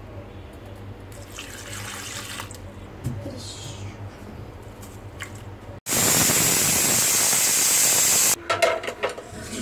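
A cup of water poured into a pressure cooker of drumstick pieces: a steady rushing splash that starts suddenly about six seconds in and lasts a couple of seconds, followed by a few short metal clinks as the lid goes on.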